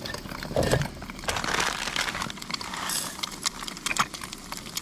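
Crinkling and clicking handling noises, with a stretch of hissing crinkle in the middle, as food and packaging are handled.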